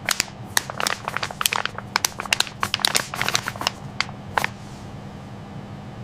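An irregular run of sharp clicks and crackles, like small hard objects or packaging being handled, lasting about four and a half seconds over a steady low hum, after which only the hum remains.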